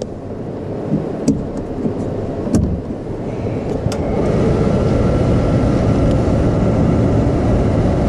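Suburban RV furnace blower motor starting and building up to speed, then running steadily with a faint whine. A few sharp clicks sound in the first few seconds.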